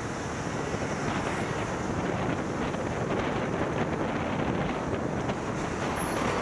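Wind buffeting the microphone of a camera on the roof of a moving car, over steady road and traffic noise.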